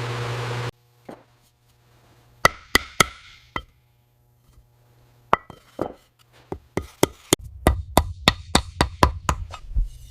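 A steady hiss cuts off suddenly, then a series of sharp knocks with a short ringing tail. A few come singly at first, then a quicker run of about three strikes a second.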